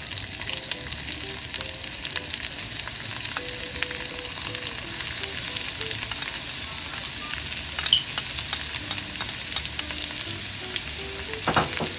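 Diced bell peppers and onion frying in hot olive oil in a cast-iron skillet: a steady sizzle with scattered crackles and pops.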